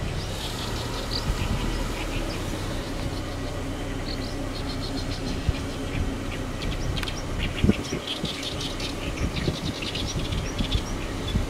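Outdoor ambience: a steady low rumble with bursts of high chirping, busier in the second half, and a few sharp knocks, the loudest about two-thirds of the way through.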